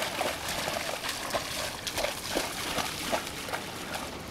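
Shallow seawater splashing and sloshing as dogs wade through it, an irregular run of small splashes over a steady wash.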